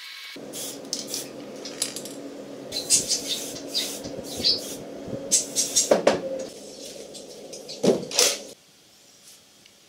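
Short hisses from a spray-paint can and small clicks and clinks of painted metal parts being handled. A hard knock comes about 6 s in, and a louder double knock about 8 s in as a wooden crate is set down on a wooden table.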